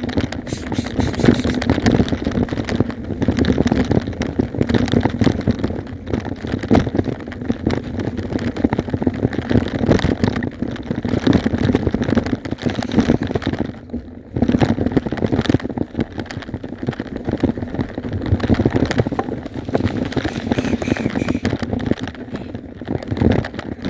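Motorcycle riding along a rough, muddy dirt track: a steady engine hum mixed with crackling, rumbling noise from the tyres and bumps, dipping briefly about two thirds of the way through.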